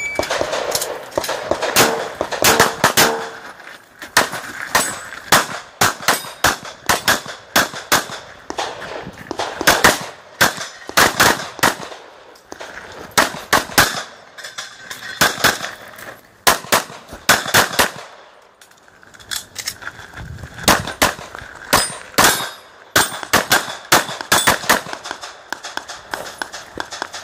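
Handgun shots fired in rapid strings, with short pauses between strings and a longer break a little past the middle.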